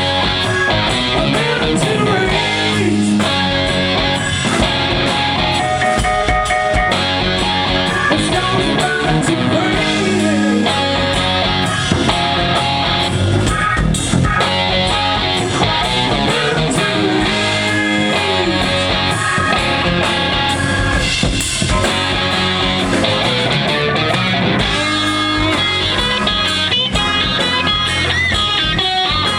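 Live rock band playing an instrumental passage, with electric guitar over drums and bass, loud and continuous.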